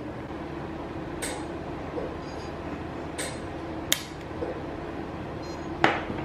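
Two sharp metallic clicks about two seconds apart from a jeweller's small tools cutting and closing a fine gold chain bracelet, over a steady background hum. A couple of brief soft hisses come earlier.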